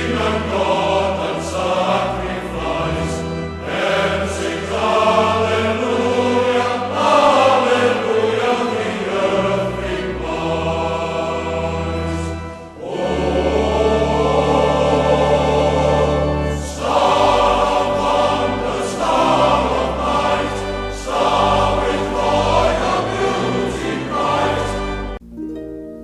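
A choir singing in sustained chords over instrumental accompaniment. About a second before the end the singing stops and a harp plays plucked notes.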